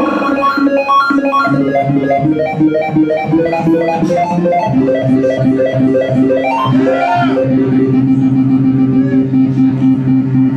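A live band playing an instrumental passage: quick stepping notes over a steady bass line. A wavering, bending tone comes in about two-thirds of the way through.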